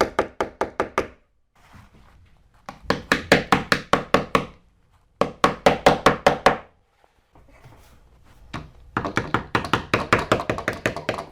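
Rapid hard knocking, about six strikes a second, in four bursts of one to two seconds with short pauses between.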